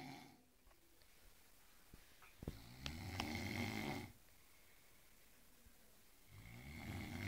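A person snoring in sleep: two long snores, the first a few seconds in and the second starting near the end, with a few faint clicks just before the first.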